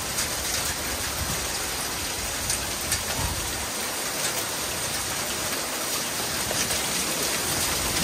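Heavy rain pouring steadily, with a few sharp ticks of drops striking near the middle.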